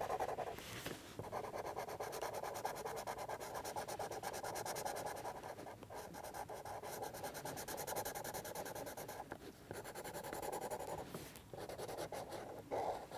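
Felt-tip pen scribbling on card, colouring in with quick back-and-forth strokes and a few short pauses.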